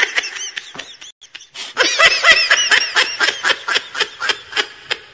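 High-pitched laughter in quick, repeated bursts: one bout, a short pause about a second in, then a longer bout that slowly dies away near the end.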